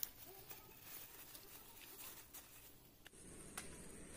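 Near silence with a few faint, soft taps and rustles as potatoes are taken from a plastic bag and set down on a banana leaf.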